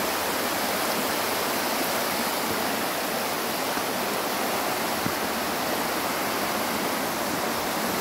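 Water rushing in a steady, even flow as it sheets and churns down a broad bare rock slab at the top of a waterfall.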